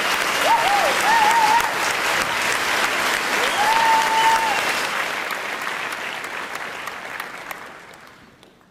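Audience applauding, with a few short cheers. The applause fades out gradually over the last few seconds.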